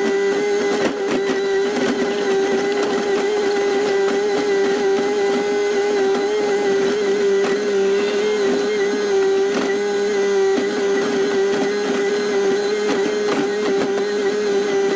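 Excavator running under load, heard from the operator's cab: a steady engine drone with a high, even hydraulic whine, and scattered knocks as the bucket works the rubble.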